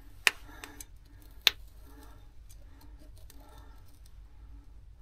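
Caulk gun clicking twice, about a second apart, as the trigger is worked to push sealant out around the fan housing, with fainter handling sounds in between.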